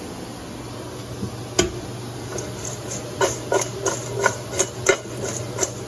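Salad being shaken and tossed in a stainless steel mixing bowl, lettuce and croutons knocking against the metal. One sharp knock comes about a second and a half in, then a run of quick light knocks, about three a second, from about halfway on, over a steady low hum.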